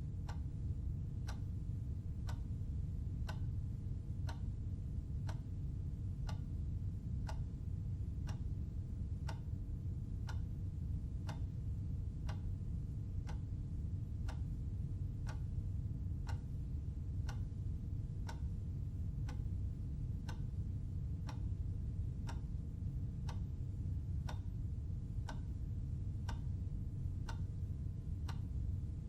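Clock ticking steadily, one tick about every second, over a constant low background hum.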